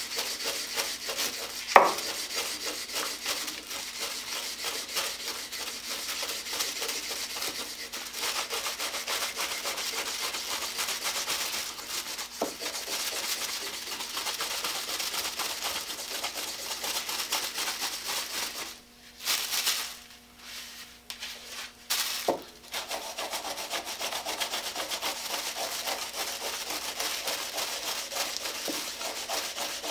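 A cloth rag in a gloved hand rubbing boiled linseed oil into a wooden saw handle, a steady brisk rubbing. A sharp knock comes about two seconds in, and the rubbing breaks off briefly about two-thirds of the way through.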